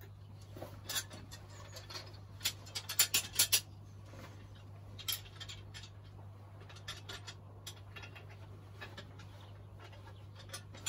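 Scattered sharp metallic clicks and taps of plumbing hand tools and fittings being handled, with a quick run of several about three seconds in, over a steady low hum.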